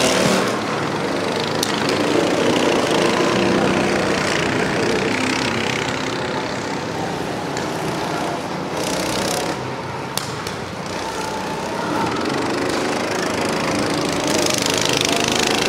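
Go-kart engines buzzing as karts lap the track, the engine note shifting as they pass, with one kart's engine drawing closer and louder in the last few seconds.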